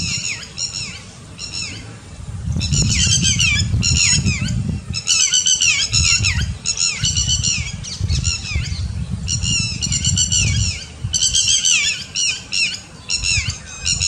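Pied cuckoo (Jacobin cuckoo) calling: bursts of rapid, ringing, down-slurred whistled notes, several a second, broken by short pauses. A low rumbling noise runs underneath.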